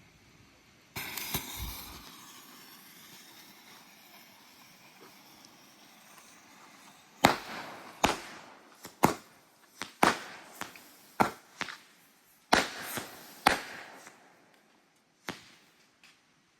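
Mad Max consumer firework going off: a sudden hissing rush about a second in that slowly fades, then a string of about a dozen sharp bangs at irregular intervals as its shots burst in the air.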